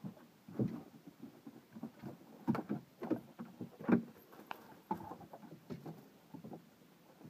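A dog searching a stacked firewood pile: irregular knocks, scrapes and rustles as it noses and steps among the wooden logs, with the loudest knocks about half a second in, around two and a half seconds, and near four seconds.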